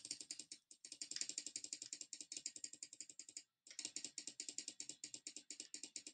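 Computer mouse button clicked rapidly and repeatedly, many clicks a second, with a short pause about three and a half seconds in: repeated clicks on a font-size button.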